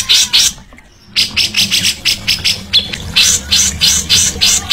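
Songbird giving a fast series of short, harsh rasping notes, about five to six a second, with a brief pause about half a second in.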